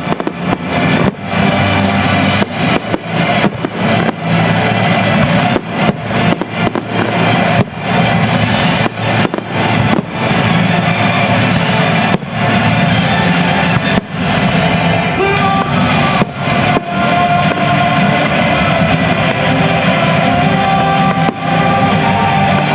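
Fireworks exploding in rapid succession over loud music with guitar. The bangs come thick and fast for the first half and grow fewer after about fourteen seconds.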